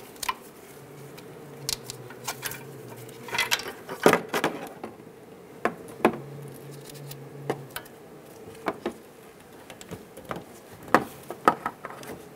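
Scattered clicks and light knocks of gloved hands handling the new hub's sensor wire, snapping its plastic push pins and retainer clips into place along the suspension, with a faint steady hum underneath.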